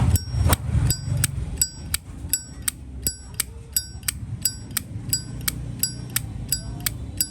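Chrome 1988 Zippo lighter's lid flicked open and snapped shut over and over, about three sharp metallic clicks a second, each with a short bright ring, the opening and closing clacks ringing at different pitches.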